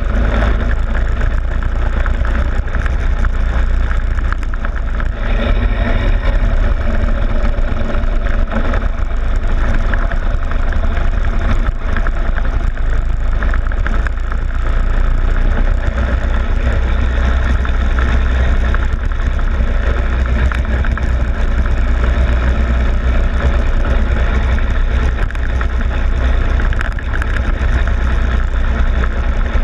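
Go-kart engine running under way around a circuit, picked up by a camera on the kart's loosely fixed front plastic fairing, with a heavy, steady low rumble of wind and vibration over the engine note.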